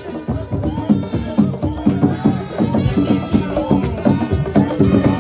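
Live Ewe borborbor music: a row of rope-tensioned hand drums played with bare hands in a fast, steady rhythm, with light percussion and voices singing over the drumming.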